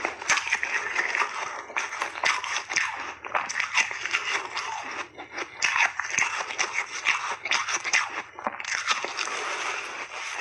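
Close-miked crunching of soft, refrozen pink shaved ice as it is bitten off in big mouthfuls and chewed: a dense, crackling crunch with a couple of short breaks.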